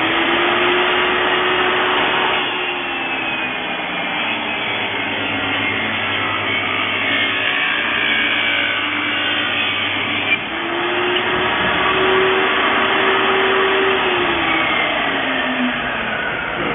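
XCORT XMY01-255 table saw with a 254 mm blade, running loudly while ripping wooden boards. The pitch of its motor whine drops and recovers as the blade takes the cuts.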